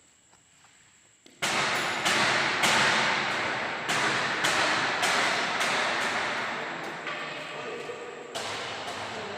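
Machinery of a PET plastic-waste washing line starting up suddenly about a second and a half in, running with loud clatter and repeated knocks about every half second that slowly ease off.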